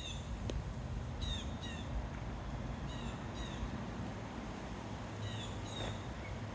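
A bird calling in short, high, falling chirps, often two in quick succession, repeated every second or two over a low steady rumble.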